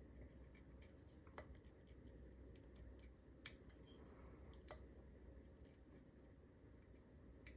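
Faint scattered clicks and scratches of a lock pick and tension tool working the pins of a cruciform (cross-key) padlock, with three slightly louder clicks spread through.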